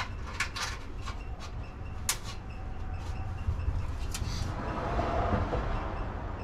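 Light metallic clicks and knocks of a bolt and bracket being handled and fitted by hand in a pickup's engine bay, with a brief rustling swell near the end, over a steady low hum.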